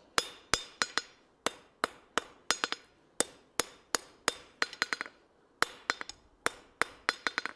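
A hand hammer strikes a red-hot steel box-jaw tong blank on the anvil, about twenty ringing blows at roughly three a second, some in quick light pairs. These are finishing blows that clean up hammer marks on the hot steel.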